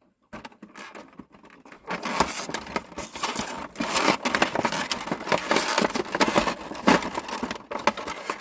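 Hot Wheels five-pack's cardboard and plastic packaging being torn and crinkled open by hand, a dense run of crackling and scraping from about two seconds in.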